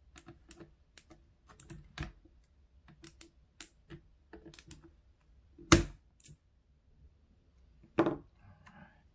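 Light irregular clicks and taps of small tools and keyboard parts being handled on a workbench, with two louder knocks about six and eight seconds in.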